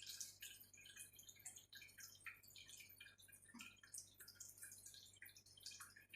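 Near silence: quiet room tone with a low steady hum and faint, scattered high-pitched ticks.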